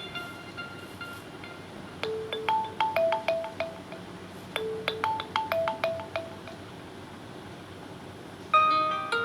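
Jio Phone system ringtone: a short, bright, chime-like melody played twice with a brief pause between. A different ringtone starts near the end.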